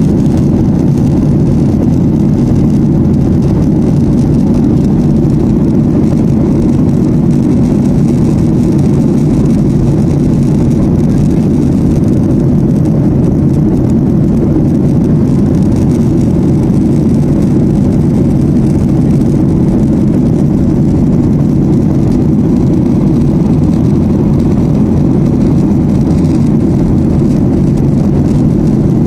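Steady low drone of an airliner cabin at cruise altitude: engine and airflow noise, unchanging in level.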